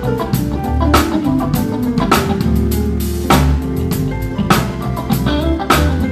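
A band playing: drum kit with strong hits about once a second, guitar, and a low bass line.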